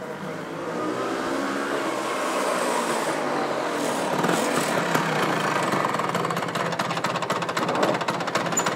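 Street traffic with a motor scooter passing close by, then a scooter engine running nearby with a fast, even putter.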